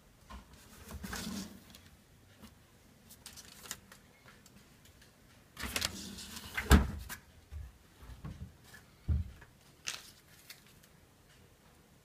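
Handling noises at an open dishwasher: scattered rustles and knocks, loudest as a thump about six and a half seconds in, with a few shorter knocks after it.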